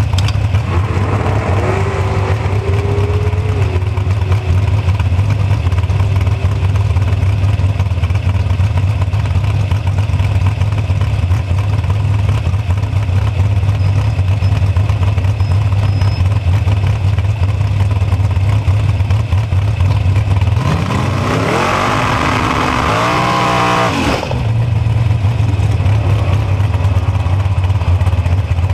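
Super Pro bracket dragster engine idling with a steady low drone, then revved hard for about three seconds with a hiss of spinning tyres, as in the pre-run burnout, before dropping suddenly back to idle.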